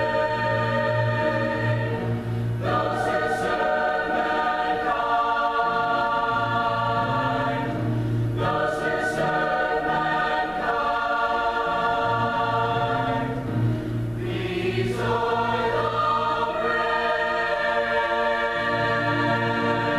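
A concert choir singing a slow piece in long held chords, with a new phrase starting about every six seconds.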